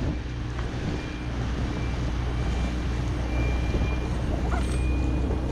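A small boat's outboard motor running steadily with a low hum, under wind rushing over the microphone and water noise from the hull moving through the bay.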